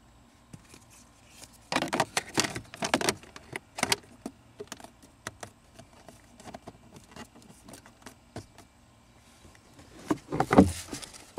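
Plastic scraping and clicking as the cabin air filter is slid back into its housing behind the glove box of a 2017 Honda Civic and the access door is fitted. About ten seconds in, a louder plastic clatter as the glove box is swung back up and clipped into place.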